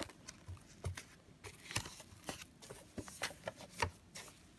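Bubble wrap around a boxed vinyl figure rustling and crinkling as it is handled and pulled off, with scattered light clicks.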